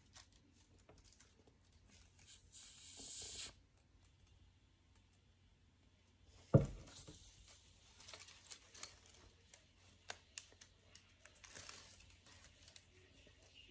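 Sheets of paper being handled and rustled, with a rasp of paper lasting about a second, roughly three seconds in. A single loud thump comes about halfway through, followed by scattered small clicks and rustles of paper.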